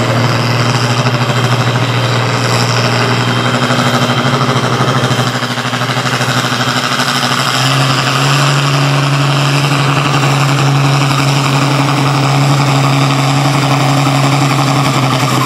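International Harvester farm tractor engine working hard under full load as it drags a weight-transfer pulling sled. It holds a steady, loud note that climbs a little about halfway through.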